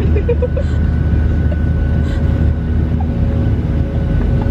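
Cabin noise of a Southwest Airlines Boeing 737 in flight, heard from a window seat: a steady low rumble from the jet engines and airflow, with a few held whining tones over it.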